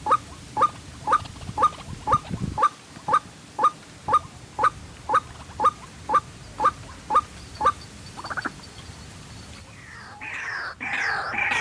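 White-breasted waterhen calling: a short repeated note about twice a second, some fifteen times. After a brief rattle and a pause, louder, harsher overlapping calls start about ten seconds in.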